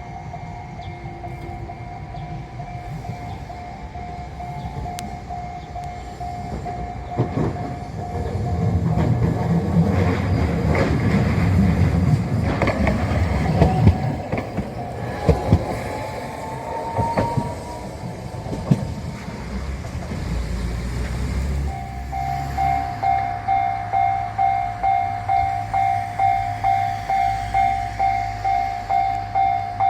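Japanese railway level-crossing alarm ringing while a train passes over the crossing. The train's rumble is loudest about ten seconds in, followed by clicks of wheels over rail joints. About three-quarters of the way through, the alarm rings again with a pulsing beat.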